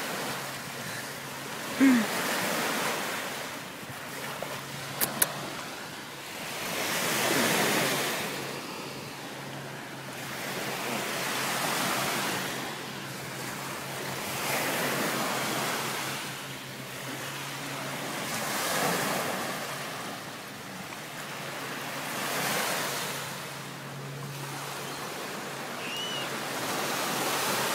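Small waves washing onto a sandy shore, the noise swelling and fading about every four seconds.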